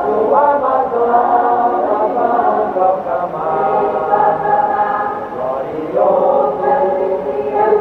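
Church choir singing a hymn in several voices, held notes moving from phrase to phrase.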